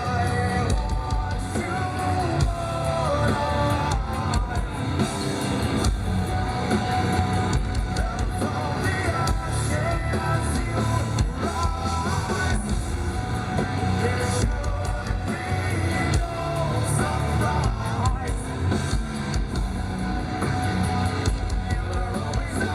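Live hard rock band playing loud: distorted electric guitars, bass and drums, with a male lead vocal singing over them.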